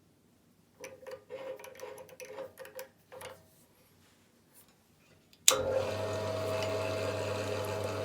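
Irregular clicking and rattling of parts being handled for a couple of seconds, then about five and a half seconds in an electric drill motor switches on with a sharp click and runs with a steady hum, ready to drill holes in an aluminium rod.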